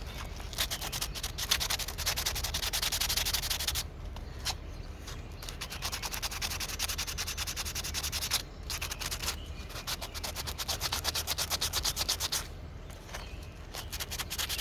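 Carving knife scraping and shaving soft, punky wood against the grain, in bouts of rapid scratchy strokes a few seconds long with short pauses between.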